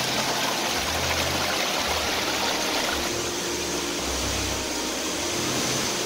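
Water of a rocky forest stream rushing and splashing over rocks in a steady hiss.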